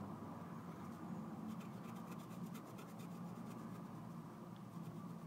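Black pen scratching on sketchbook paper, shading in a small filled circle with many quick short strokes that come thick and fast from about a second and a half in, over a faint steady room hum.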